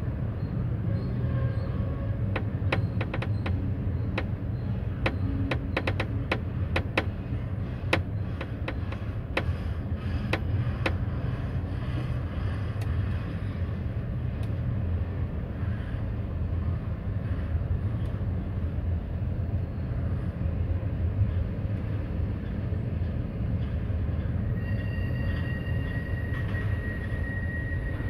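Freight train cars rolling past with a steady low rumble. For the first ten seconds or so there is a rapid run of sharp clicks from the wheels, and near the end a thin, steady high squeal sets in.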